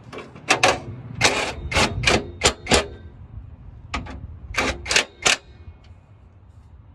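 Hand ratchet clicking in a dozen or so short strokes, with a pause of about a second partway through: bolts on long-tube exhaust headers being run in.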